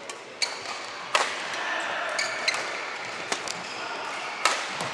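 Badminton rally: several sharp racket hits on the shuttlecock, a second or so apart, mixed with short high squeaks of shoes on the court.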